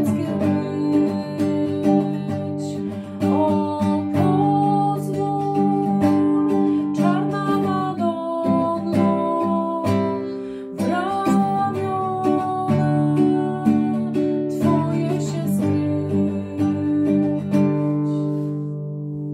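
Acoustic guitar strumming chords under a sung melody of a Polish Marian hymn, thinning out to a held chord that fades near the end.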